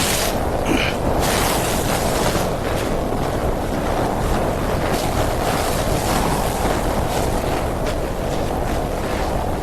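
Blizzard wind blowing hard, a loud, steady rushing noise that keeps up without a break.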